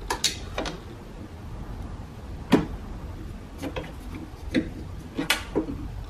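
A T20 Torx driver being worked into the access hole in a car door's rear edge to find the lock cylinder screw: a handful of irregular sharp clicks and light knocks of the metal shaft against the screw and door, the sharpest about two and a half seconds in and near the end.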